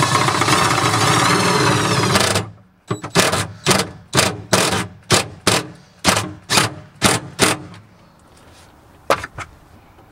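Cordless DeWalt drill driving a self-tapping screw into a car's sheet-metal floor pan. The motor runs continuously for about two seconds, then comes a quick series of about eleven short bursts, roughly two a second, as the screw is snugged down. A single click comes near the end.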